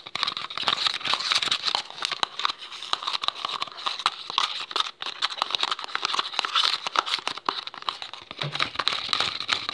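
A fork stirring a slime mixture in a bowl, with rapid, continuous clicking and scraping against the bowl.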